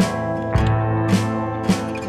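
Background music: guitar over held chords with a steady beat, a little under two beats a second.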